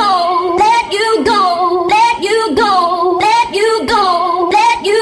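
Hardcore dance music from a DJ set: a high female vocal phrase repeats over and over, swooping down and back up in pitch, over a steady kick drum.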